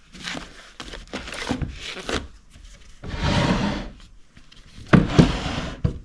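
Papers and books rustling as they are handled in an old wooden desk drawer. Then a wooden drawer slides with a rubbing rush about three seconds in, and sharp wooden knocks follow about five seconds in as drawers are shut and opened.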